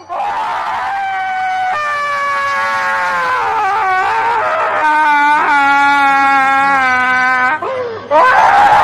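A loud, long wailing scream held at a steady pitch, breaking off briefly in the middle and resuming, then short rising cries near the end.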